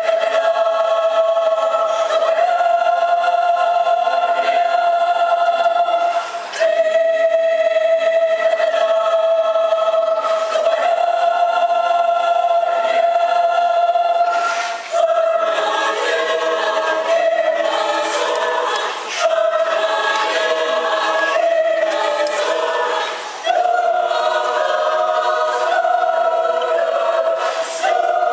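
Mixed choir of men and women singing long held notes in several parts, breaking briefly for breath every few seconds; about halfway through the singing fills out into fuller chords.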